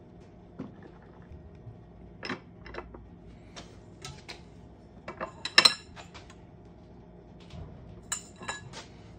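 Steel tooling on a hand arbor press clinking and knocking as a copper coin ring is pressed down through a ring-reducing die: scattered clicks, with a sharp ringing clink about halfway through and a few more ringing clinks near the end.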